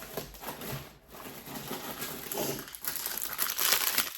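Packaging crinkling and rustling as it is handled, getting louder about three seconds in.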